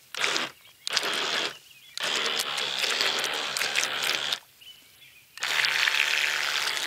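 RC model battleship's motors and propellers running in bursts as the throttle is worked, a buzzy whir that starts and stops four times, the longest run lasting about two seconds.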